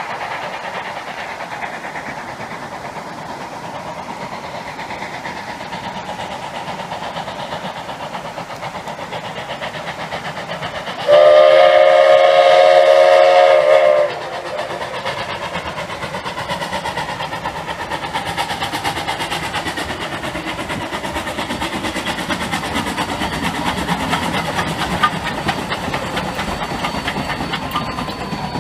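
Rushing river water, then a steam locomotive whistle, several notes sounding together, blown once for about three seconds. After the whistle the running noise of the narrow-gauge 2-8-0 D&RGW 315 and its train slowly grows louder.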